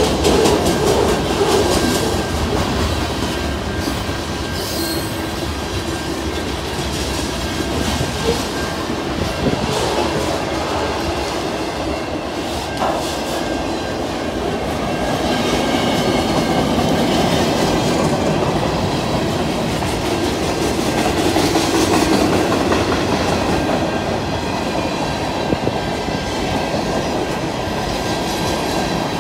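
Freight train cars rolling steadily past, wheels clicking over the rail joints in a continuous rumble.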